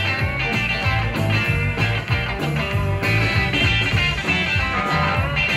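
Live rock-and-roll band playing an instrumental passage with no vocals: electric guitars over bass and drums, with a steady beat.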